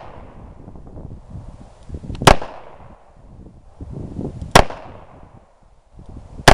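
A small handgun firing three single shots, about two seconds apart.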